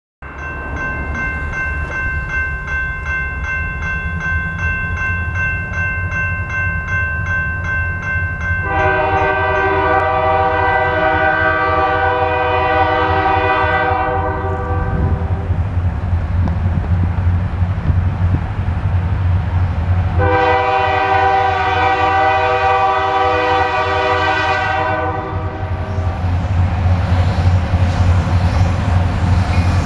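An approaching diesel freight locomotive rumbles low and steadily and sounds its multi-chime air horn in two long blasts, with a short blast starting at the very end. This is the opening of the long-long-short-long grade-crossing signal.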